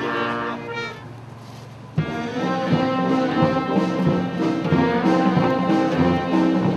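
Brass band of clarinets, trumpet, French horn and sousaphone playing. A held chord fades out about a second in, and after a short lull the band starts again at about two seconds with a regular beat in the bass.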